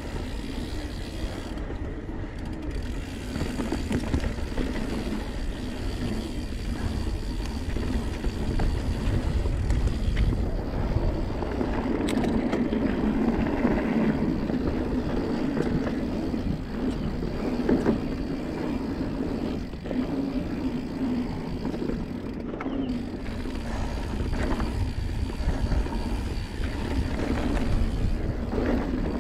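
Santa Cruz Blur carbon full-suspension mountain bike riding on dirt singletrack: steady tyre noise over the trail with occasional clatter from the bike over bumps, and a low rumble of wind on the action camera's microphone.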